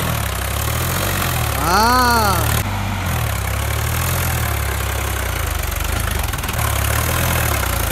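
Sonalika tractor's diesel engine running steadily under heavy load as it climbs a sandy slope with its front wheels lifting. About two seconds in, a short tone rises and falls in pitch over the engine.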